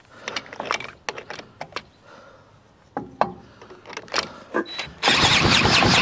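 Clicks and knocks as a cordless drill is set on the flywheel nut of a 100-year-old Atco mower's Villiers two-stroke engine. About five seconds in, the drill starts spinning the engine over: a sudden loud, steady churn with a rapid even beat, the engine cranking without catching.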